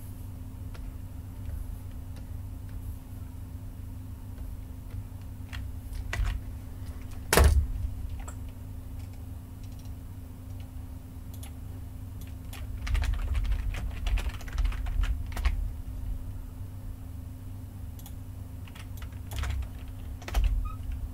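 Computer keyboard typing and clicking, scattered keystrokes with one loud click about seven seconds in and a quick run of keystrokes in the middle. A steady low hum runs underneath.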